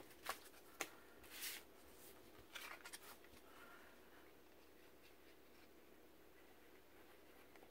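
Faint rustles and light taps of paper pieces being handled, a few scattered through the first three seconds or so, then near silence.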